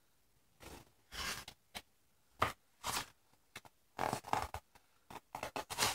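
Thick cardboard pages of a board book being handled and turned by a small child: a series of short scrapes and rustles, coming more often in the second half.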